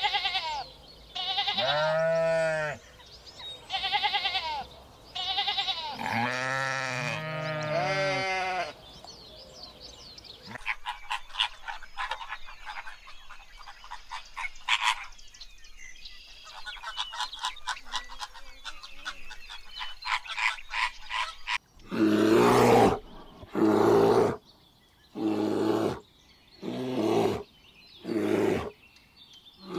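A ram bleating several times, followed about a third of the way in by a flock of flamingos calling in a dense chatter of short calls. Near three-quarters of the way through, black bears take over with a run of loud, rough calls about once a second.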